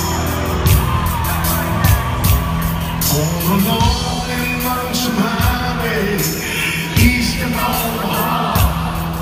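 Live band music led by a grand piano, with a steady beat and a man singing that comes in about three seconds in, recorded from the audience at a concert.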